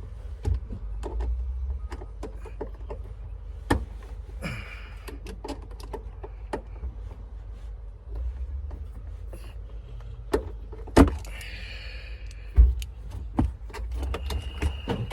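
Scattered clicks and knocks of a hand tool working a sun visor's mounting screw loose, with several louder knocks in the second half, over a steady low rumble.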